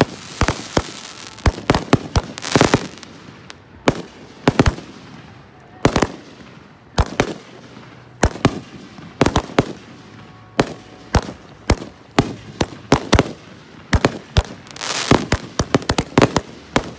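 Aerial fireworks going off one after another: sharp bangs at irregular spacing, some single and some in quick clusters, with a dense flurry of bangs near the end.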